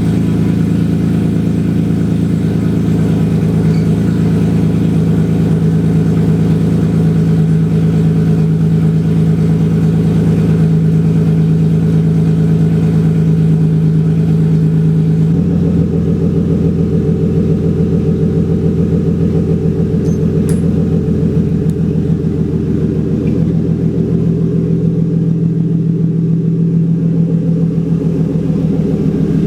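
Lexus IS300's 2JZ-GE inline-six running with an aftermarket header and mid-pipe on an otherwise stock exhaust, a steady loud exhaust note whose tone shifts abruptly about halfway through.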